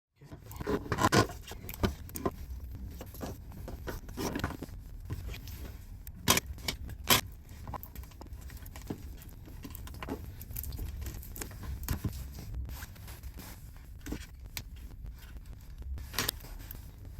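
Irregular clicks, knocks and light rattles of small parts being handled on a workbench, over a low steady hum.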